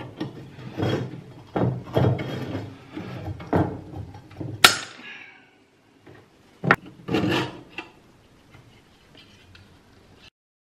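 Diagonal side cutters working at the rusty wire guide of an old kerosene lamp, with scraping and handling of the metal, then one sharp metallic snip with a ringing tail about four and a half seconds in as the wire end is cut through. A second sharp click follows about two seconds later, then a brief scrape.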